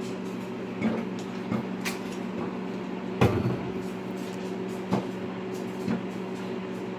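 Microwave oven running with a steady hum while popcorn pops inside it now and then, about six sharp pops spread over several seconds, the loudest about three seconds in: the popping is slowing toward its end.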